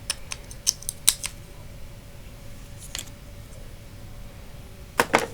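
Small sharp clicks and taps of drone frame parts and screws being handled and fitted during the frame build. There is a cluster in the first second, a single click about three seconds in and two more near the end, over a faint steady hum.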